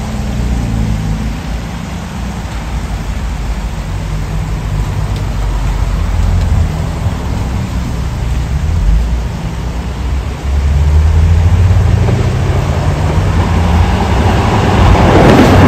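Diesel engine of an HST's Class 43 power car approaching: a low, pitched drone that grows louder and rises in pitch from about ten seconds in, with the rush of the train on the rails building near the end as it draws close.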